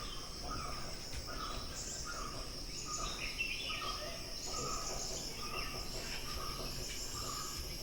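Forest ambience: a steady high-pitched drone of insects, with a short note repeated over and over and scattered bird chirps above it.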